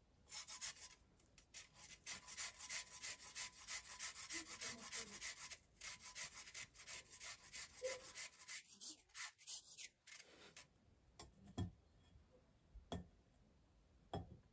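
A carrot being grated on a long stainless-steel rasp grater: quick scraping strokes, about three a second, that stop about ten seconds in. A few separate light knocks follow near the end.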